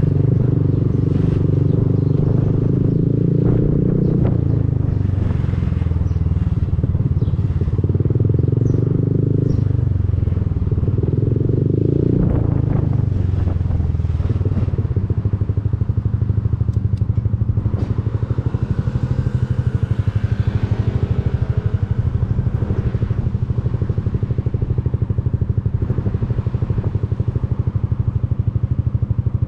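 Honda Forza 300 scooter's single-cylinder engine through an Arrow aftermarket exhaust. The note drops about four seconds in, swells and falls again around twelve seconds, then settles into a low, even pulsing run.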